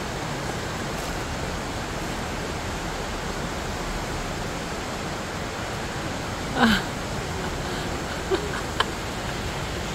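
Steady rushing outdoor noise, even and unbroken, with one short call about two-thirds of the way through and two faint clicks soon after.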